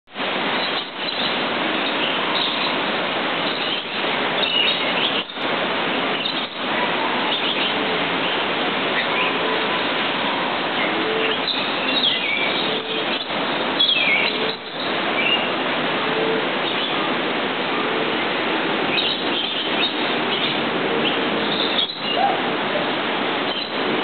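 Several birds chirping and calling over a steady rushing background noise: scattered short high chirps and short low notes repeating every second or two.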